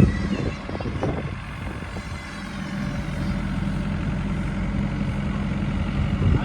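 JCB 3DX backhoe loader's diesel engine running steadily, with two sharp knocks near the start and about a second in.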